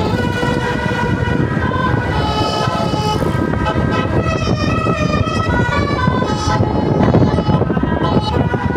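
Tour bus's Basuri telolet horn playing a melody of several musical notes that change in steps, over the low rumble of the bus and traffic.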